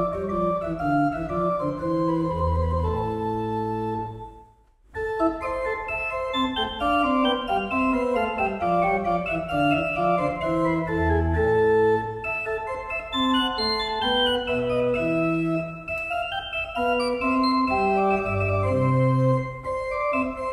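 Organ music playing held notes and chords, with a brief pause about four and a half seconds in.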